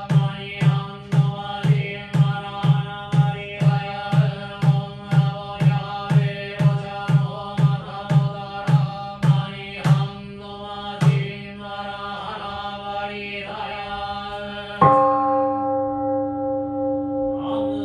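Buddhist sutra chanting kept to a steady beat of percussion strokes, about two a second, which thins out around ten seconds in. Near the end a large temple bowl bell is struck once and rings on with a long steady tone, and the chanting resumes over it.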